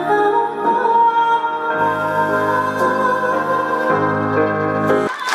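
Live music: a woman sings held notes into a microphone over violin and sustained chords, the chords changing twice. The music breaks off abruptly near the end.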